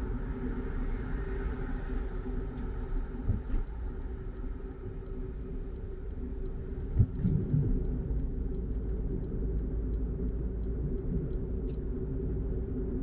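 Car driving, heard from inside the cabin: steady low engine and road rumble with a faint hum, and a brief thump about seven seconds in.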